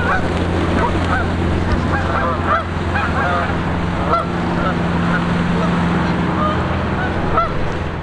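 A flock of Canada geese honking, many short calls overlapping one another, over a steady low hum.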